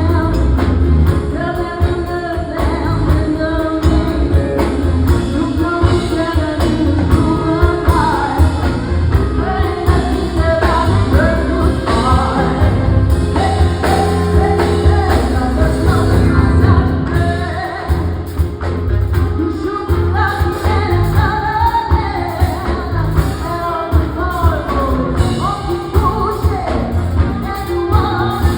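Live band playing an upbeat song, with a singer's voice carrying the melody over a heavy bass and drums.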